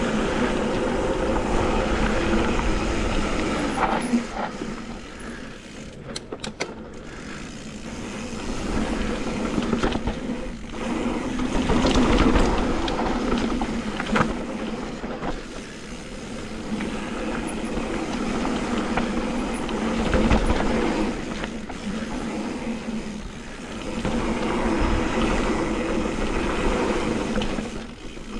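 Off-road motorcycle engine running and rising and falling with the throttle, heard from a helmet-mounted camera while riding a dirt trail, with a few sharp knocks about six seconds in.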